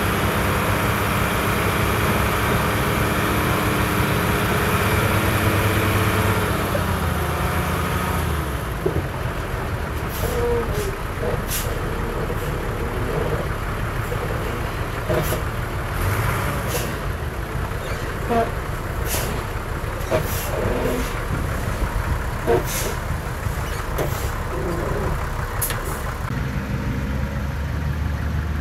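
Heavy diesel engines of earthmoving machinery, dump trucks and a bulldozer, running loudly, then easing off after about eight seconds. A scatter of short sharp sounds follows, before a deep steady engine sound picks up again near the end.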